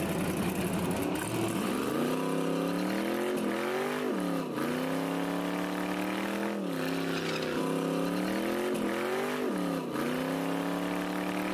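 Drag car engine revving hard during a burnout, its pitch climbing and then dropping sharply several times as the rear slick spins.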